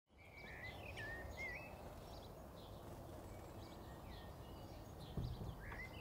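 Faint chirping of a house sparrow: short cheeps and wavering notes in two bouts, one at the start and one near the end, over a steady low background rumble. A soft low thump a little after five seconds.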